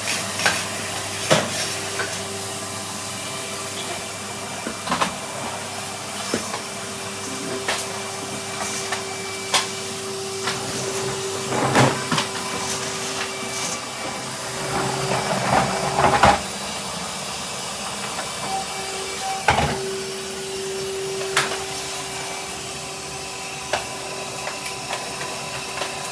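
Henry canister vacuum cleaner running steadily, a constant hum under the suction noise, with scattered sharp clicks and knocks as it is worked over the floor.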